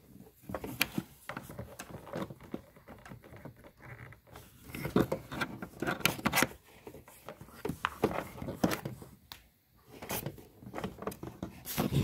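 Irregular clicks, scrapes and rustles of cables and plastic connectors being handled while a VGA cable is plugged into a micro HDMI to VGA adapter.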